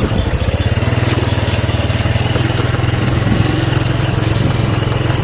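A small engine running steadily at an even idle, with a low, pulsing hum.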